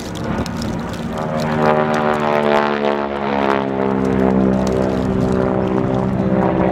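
North American SNJ trainer's Pratt & Whitney R-1340 radial engine and propeller running hard in flight, its pitch sliding down about two seconds in and then holding steady.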